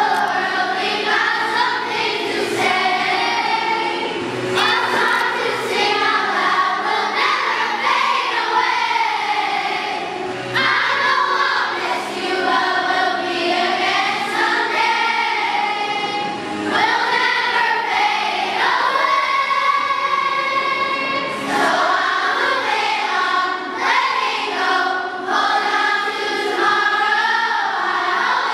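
A large children's choir singing a song together in sung phrases with held notes and brief breaks between lines.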